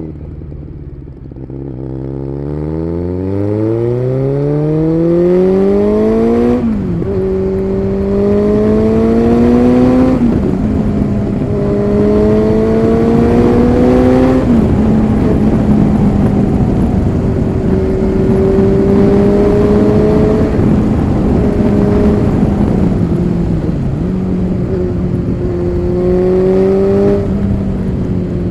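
Kawasaki Z900's inline-four engine through an aftermarket SC Project exhaust, accelerating hard up through the gears. The engine pitch climbs from low revs in three rising runs, each cut off by an upshift, then holds a fairly steady cruise, with a brief dip in revs near the end.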